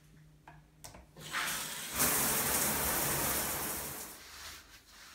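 A shower mixer valve is turned with a couple of faint clicks, then the shower head comes on with a loud, steady hiss of spraying water that fades after about four seconds.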